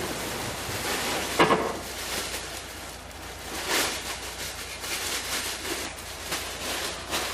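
Scattered knocks and handling clatter of someone working by hand, the loudest about a second and a half in, over a low background.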